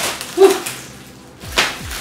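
Plastic packaging rustling and crinkling as flat-packed cardboard sneaker boxes in clear plastic wrap are handled, with a short vocal "woo" about half a second in.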